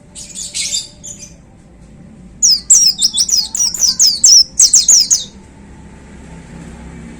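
Pleci (white-eye) singing. It gives a short burst of high chirps, then after a pause about three seconds of loud, fast, high sweeping notes. This is the rapid 'tembakan' (shot) delivery that keepers prize in a bird in full song.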